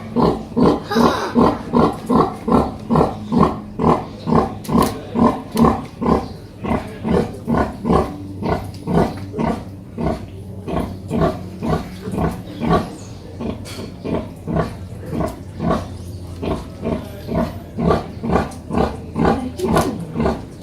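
Pig grunting in a fast, even rhythm of about three short grunts a second, slowing and thinning a little in the second half.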